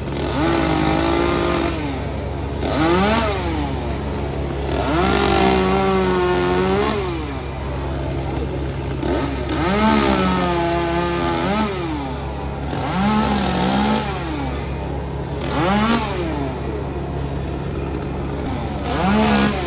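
Chainsaw engine running at a steady idle and revved up several times, about seven, each rev climbing in pitch and dropping back.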